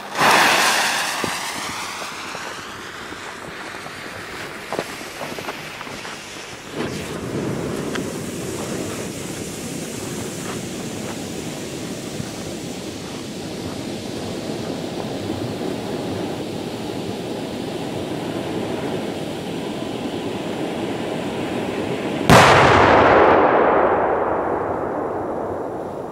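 A red tube firework being set off: its fuse flares up as it is lit and hisses, then the charge burns with a steady hiss for about fifteen seconds, and a sharp loud bang comes near the end and fades over a few seconds.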